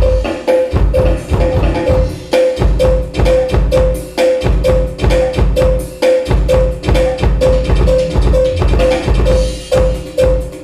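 Loud music with a heavy bass beat and a short, high knocking note repeated evenly about two to three times a second.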